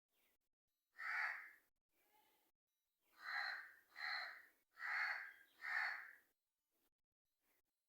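Crow cawing: one caw about a second in, a faint call after it, then four caws in quick succession.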